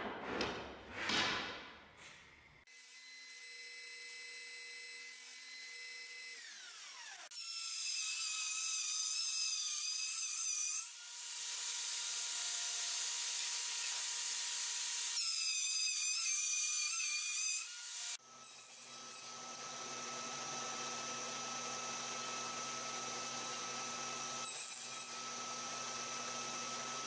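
Woodshop power tools working ash. After a brief rub of wood on wood, a machine winds down with a falling tone. Then comes about ten seconds of loud cutting noise, which is a blade working through the wood. After that a machine runs steadily.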